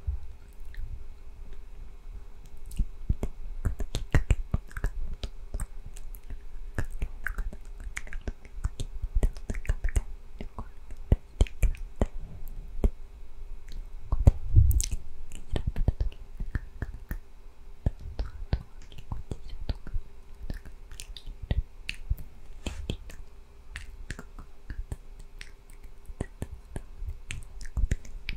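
Inaudible ASMR whispering, breathy and unintelligible, right against a condenser microphone. Frequent sharp wet mouth clicks run throughout.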